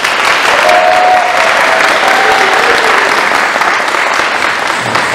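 Audience applauding loudly after a dance performance ends, with a few short cheers rising above the clapping in the first half.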